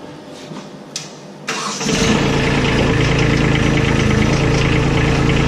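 Compact tractor engine starting about a second and a half in, then running steadily.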